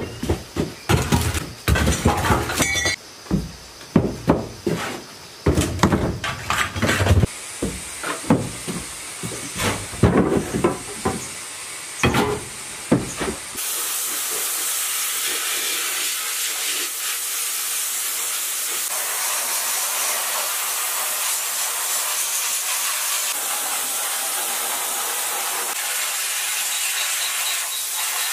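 Irregular knocks and clatter of metal engine parts being handled for the first half, then a steady loud hiss of compressed air blasting from a hose, used to treat rust on the parts.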